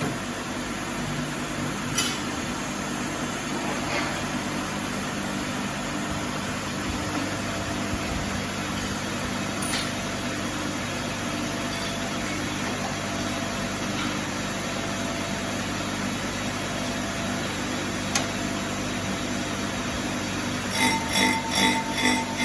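Brake grinding machine's electric motor running at a steady speed, with a few faint clicks. Pulsing music comes in near the end.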